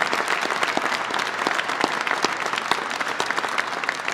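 Crowd applauding: dense, many-handed clapping that begins to taper off near the end.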